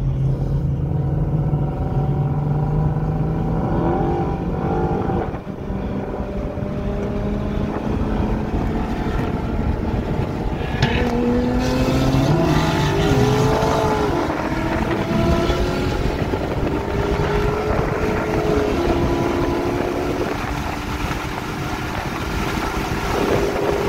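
Car engine heard from inside the cabin under hard acceleration, its pitch slowly rising and then dropping back at a few gear changes, over steady road and wind noise.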